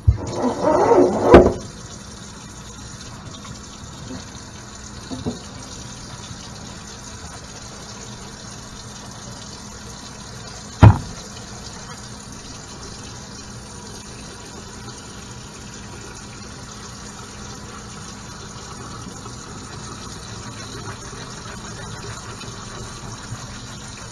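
Kitchen faucet running steadily into a stainless steel sink while dreadlocks are rinsed under it. A short voice-like sound comes in the first second or so, and a single sharp knock comes about halfway through.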